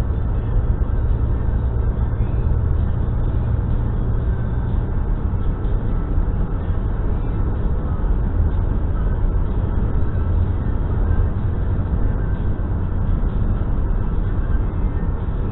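Car driving at steady cruising speed, heard from inside the cabin: an even low rumble of tyres on asphalt and engine, with no change throughout.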